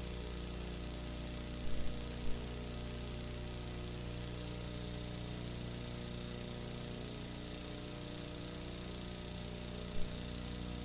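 Steady electrical hum with a layer of hiss, the noise floor of an old worn soundtrack. Brief pops come about two seconds in and again near the end.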